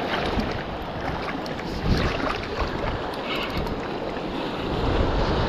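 Wind buffeting the microphone in uneven gusts over the steady wash of surf around the wading angler.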